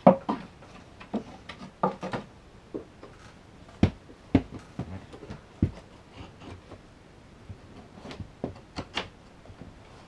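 Irregular knocks and clacks of a laptop and a thin wooden strip being handled and set against a wooden wall mount, the loudest knock at the very start and a few sharp ones near the middle.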